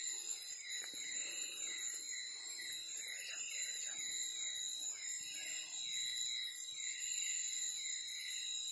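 Tropical night-time insect chorus: several steady, high-pitched insect drones layered together, with a rapid series of short falling chirps, about four a second, pulsing beneath them.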